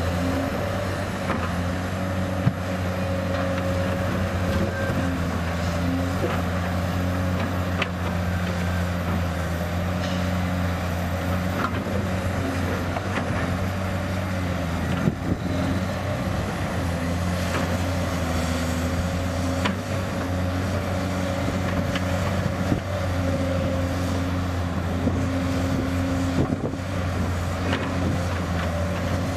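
Diesel engines of large hydraulic excavators running steadily under load while digging and loading rock, the pitch shifting a little as the hydraulics work. Scattered sharp knocks from the digging and dumping of rock come through over the engine sound.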